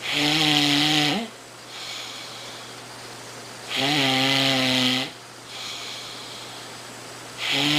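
A man snoring. There are three loud, steady-pitched snores, each about a second long, coming about every three and a half seconds, with quieter breathing between them.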